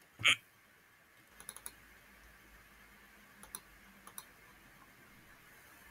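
Clicks from a computer mouse and keyboard: one loud click shortly after the start, then a handful of quieter clicks in small clusters.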